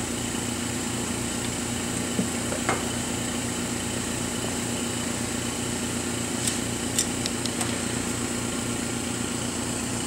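Steady machine hum of a running mask aligner with its mercury arc lamp and lamp power supply. A few light clicks and taps about two to three seconds in, and a quick cluster of ticks around seven seconds in, as a glass photomask is handled.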